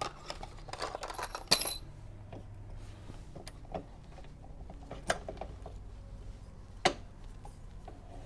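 Small metal objects clinking and knocking as they are handled and set down: a quick run of clicks with a bright metallic ring in the first two seconds, then single sharp knocks about five and seven seconds in.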